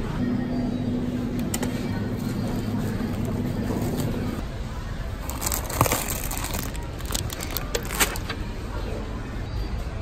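Plastic pasta packet crinkling as it is pulled from a metal supermarket shelf, a few sharp rustles about halfway through and again near the end, over steady store background noise.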